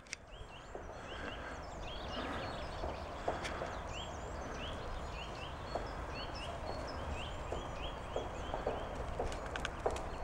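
Birds calling in short, repeated chirps, several to the second in bursts. Near the end, light patter from a pointer puppy's paws running up on gravel.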